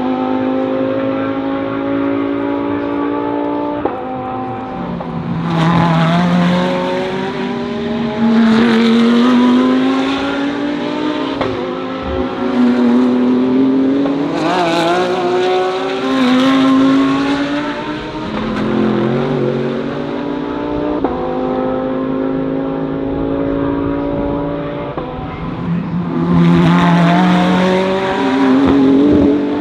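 DTM GT3 race cars running at speed, several of them going past one after another, each swelling in loudness as it passes. The engine notes climb steadily through the gears and step back down on upshifts and under braking.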